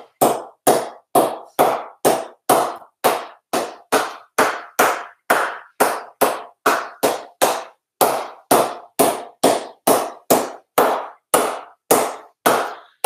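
A cricket ball bounced again and again on the face of a willow cricket bat: a steady run of sharp knocks, about two to three a second, each ringing briefly.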